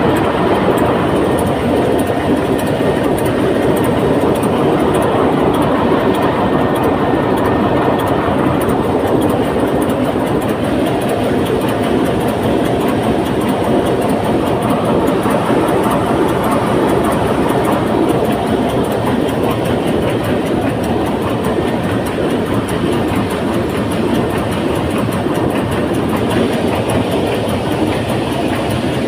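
Loud, steady running of a ship's diesel engine heard up close in the engine room, with a rapid, even clatter over the din.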